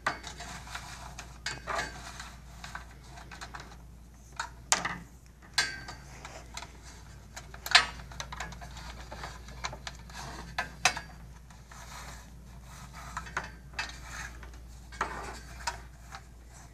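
Electrical wire being pushed and worked along the channel of an aluminium tower column, rubbing and tapping against the metal rails and plastic clips, with scattered sharp clicks, the sharpest about eight seconds in.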